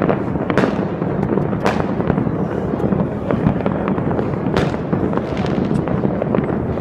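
New Year fireworks and firecrackers going off all over a city at once: a dense, unbroken crackle of pops and bangs, with a few louder bangs standing out about half a second, under two seconds and four and a half seconds in.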